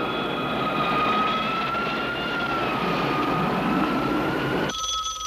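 Jet aircraft engine whine over a steady rushing noise, its pitch drifting slightly. Near the end it cuts off suddenly and a telephone starts ringing.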